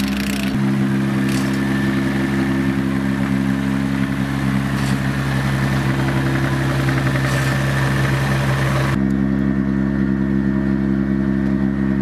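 Car engine idling steadily at one speed, with a few faint clicks over it. Part of the hiss above the engine drops away about nine seconds in.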